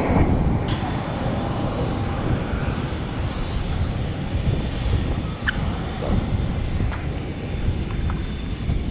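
Steady aircraft engine noise, a dense rumble with a faint high whine over it, and a few light clicks about five and a half seconds in.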